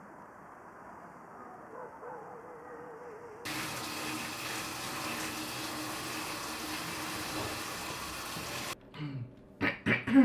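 Faint low ambience, then a steady rushing noise that starts abruptly about three and a half seconds in and cuts off sharply about nine seconds in, followed by a few brief sounds near the end.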